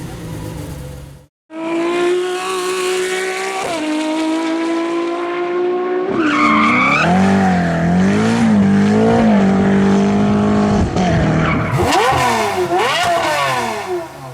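Lamborghini Aventador V12 engine pulling hard with its pitch climbing steadily, a brief shift about four seconds in, then running with the revs wavering up and down, and several sharp revving blips near the end.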